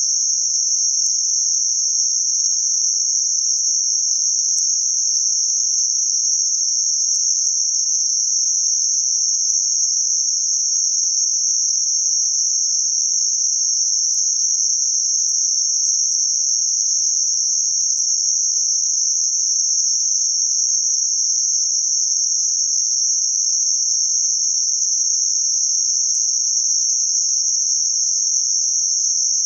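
Synthetic narrow-band noise centred on 6051 Hz: a steady, unchanging high-pitched hiss.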